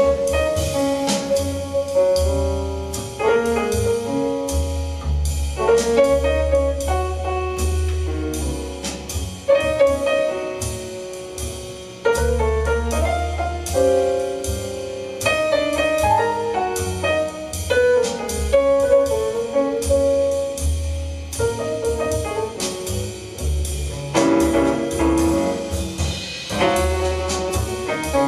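Instrumental break in a vocal jazz song, played over a hi-fi speaker system: a melody line with piano, bass and a steady cymbal beat.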